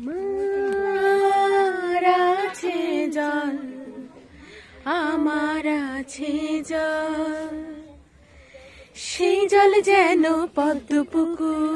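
A woman singing unaccompanied in three long, slow phrases of held notes with vibrato, with short pauses between them.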